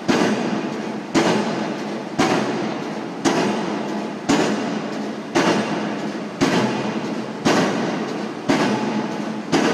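Pile driver hammering a pile: about ten heavy blows at a steady beat of roughly one a second, each a sharp clang that fades before the next, over a steady low hum.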